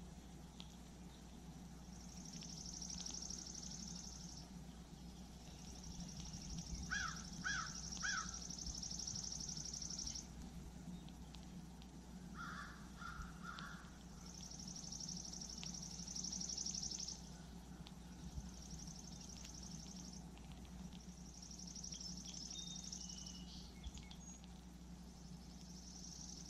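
Quiet outdoor ambience: a bird gives three quick calls, and three softer calls follow a few seconds later. Under them runs a high buzz that swells and fades every few seconds, and a steady low hum.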